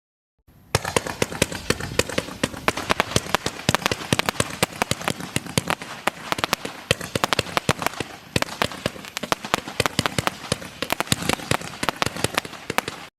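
Consumer fireworks going off in a fast, dense string of small sharp cracks, like a firecracker strip or a zipper cake. The string stops abruptly near the end.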